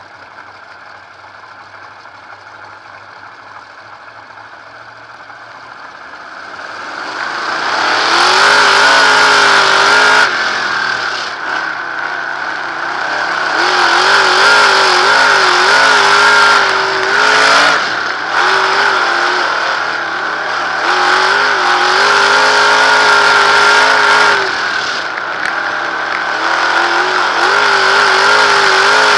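A 360 sprint car's V8 engine, heard from the onboard camera. It is fairly quiet at first, then from about seven seconds in it grows loud and runs with revs rising and falling, easing off briefly several times.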